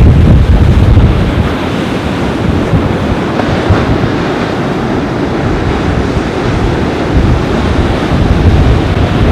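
Surf washing on a beach in strong wind, with gusts buffeting the microphone in heavy low rumbles that ease after about a second and a half and build again near the end.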